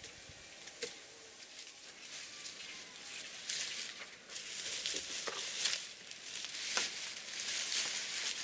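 Dry, papery garlic stalks and leaves rustling and crackling as bunches of cured garlic are handled, with a few sharp snaps; the rustling gets louder about halfway through.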